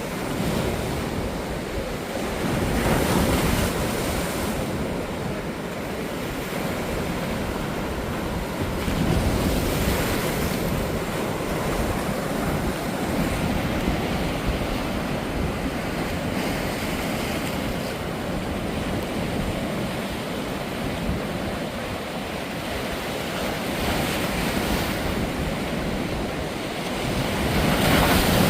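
Sea waves breaking and washing onto a sandy beach in a continuous surf. The surges swell every several seconds, and wind rumbles on the microphone.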